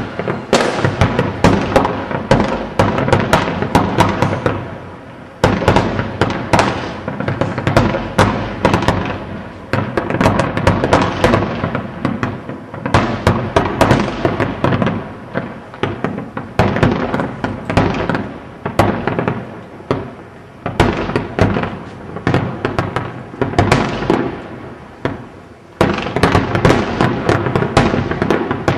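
Large aerial fireworks display: a continuous barrage of bangs and rapid crackling from bursting shells, coming in waves that swell and fade, with fresh heavy volleys starting about five seconds in and near the end.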